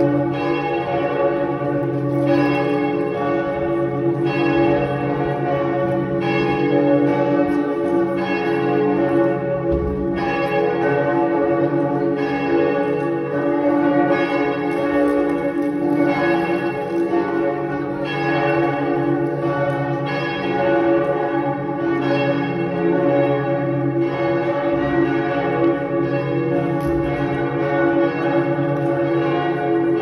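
Church bells of a cathedral pealing. Several bells ring together, with fresh strokes about once a second and their tones overlapping and hanging on between strokes.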